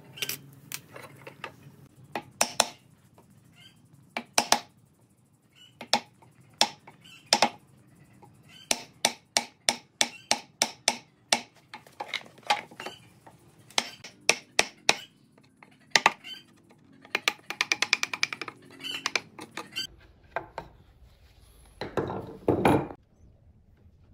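Wooden mallet striking a chisel to chop a hinge mortise into the edge of a wooden board: sharp knocks at uneven intervals, sometimes in quick runs of several a second. Near the end there is a longer scraping sound as the recess is cleaned out.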